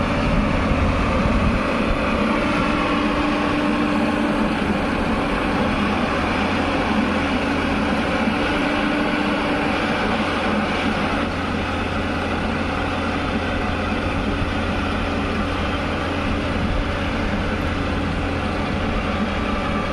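Heavy diesel engine of a Tata Hitachi excavator running steadily under load as the machine climbs onto a trailer. A slight drop in level comes about eleven seconds in.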